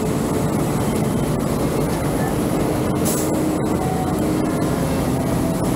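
Steady road and traffic noise heard from a moving bicycle in the rain: an even roar with no breaks, and a brief hiss about three seconds in.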